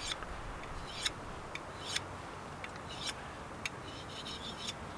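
Knife edge stroked across the fine side of a Fallkniven CC4 ceramic pocket whetstone, used dry: short, bright scrapes about once a second, a little quicker near the end.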